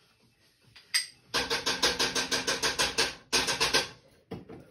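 Gas stove burner igniter clicking rapidly, about eight clicks a second, for nearly two seconds; it stops briefly and clicks again for about half a second as the burner under the skillet is lit.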